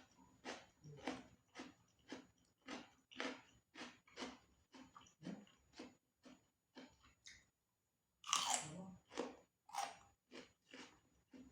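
Close-up chewing of crispy deep-fried yutuk (mole crabs), a steady run of crunches about two to three a second. A brief pause comes about seven seconds in, followed by a louder, sharper bite.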